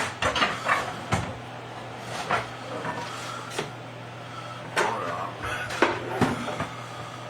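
Kitchen clatter: a dozen or so irregular knocks and clunks of dishes and cupboards being handled, over a steady low hum.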